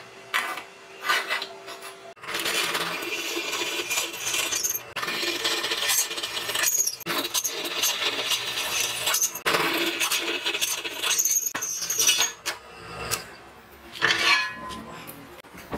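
Daikatsu drill press boring through a steel plate: a continuous grinding, squealing cut lasting about ten seconds. A few metal clinks of the steel frame being handled come before it, and more clinks and a short ring near the end.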